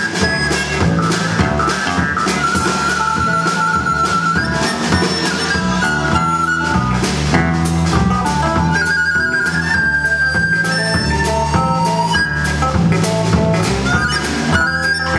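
A live indie rock band playing: drum kit, electric guitar and bass under a melody of long held high notes.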